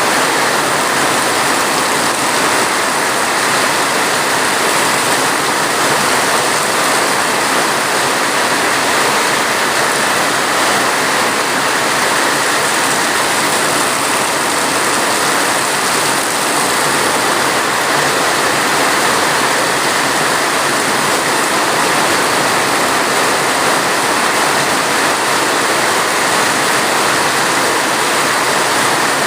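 Steady heavy rain, an even hiss with no breaks or single drops standing out.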